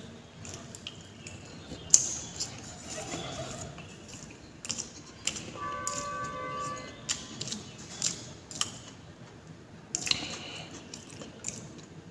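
Fingers picking and scraping leftover food off a steel plate, with scattered sharp clicks and taps and the small wet sounds of eating; the sharpest click comes about two seconds in. About halfway through, a steady pitched tone sounds for about a second and a half.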